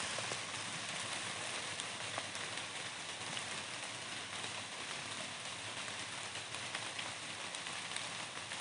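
Light drizzle falling on forest leaves and a muddy trail: a steady hiss with scattered small drop ticks.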